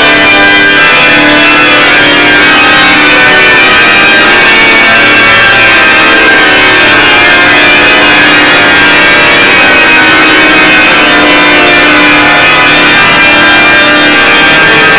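Pipe organ playing loud, sustained chords in many voices at once.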